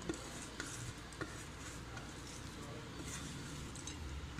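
Faint kitchen handling sounds: a few soft clicks and taps of a hand gathering chopped coriander off a plate and adding it to a bowl of tamarind water, over a low steady hiss.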